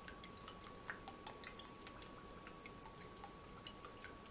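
Faint, irregular ticks of Worcestershire sauce dripping from its upturned bottle into a small measuring cup, over quiet room noise with a faint steady high whine.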